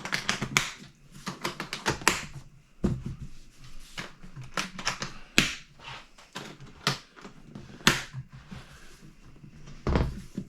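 Hands handling small items and the hard case's accessory compartment: an irregular run of light clicks, taps and rustles, with a heavier knock near the end.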